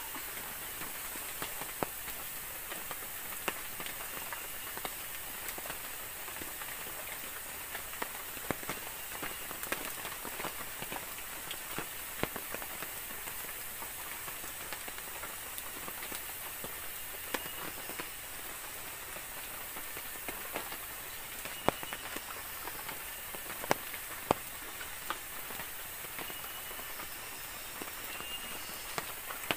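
Steady rain falling, with scattered sharp ticks and pops throughout and a few louder ones about three-quarters of the way through.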